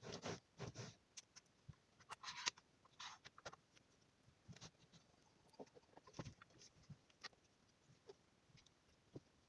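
Faint, scattered clicks, taps and brief rustles from parts of a sliding miter saw being handled during assembly, busiest in the first few seconds and then sparse.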